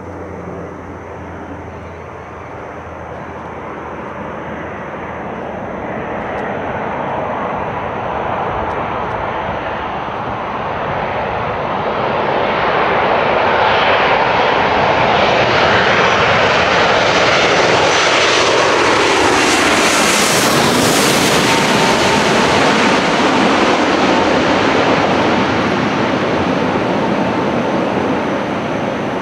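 Boeing 787 twin-jet airliner on final approach. Its engine noise builds steadily as it closes in and is loudest as it passes overhead, where a whine slides down in pitch, then eases a little as it heads away toward the runway.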